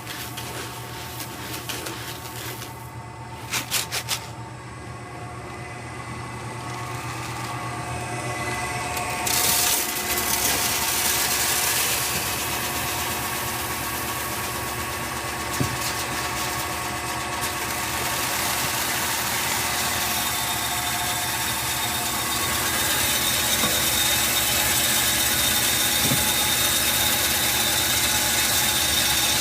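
Satake GA20RA roasted-coffee sorting machine running with a steady mechanical hum, with a few rattling clicks about four seconds in. About ten seconds in, a broad rushing noise rises sharply and stays to the end.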